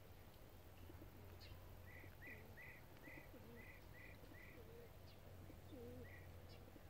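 Faint birdsong: a small bird gives a run of about seven short chirps at roughly two a second, over low, wavering dove cooing, with a steady low hum beneath.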